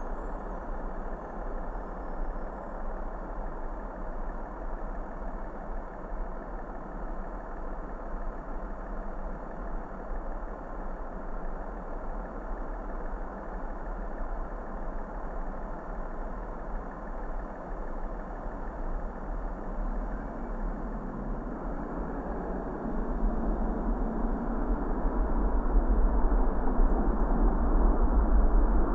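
Car driving: a steady engine and road rumble that grows louder over the last several seconds.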